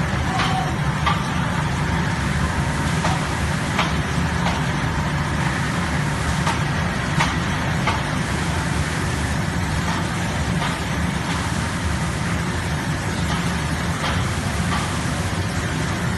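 Chocolate packing line running: a steady low machine hum with a broad mechanical rush, broken by scattered light clicks from the mechanism.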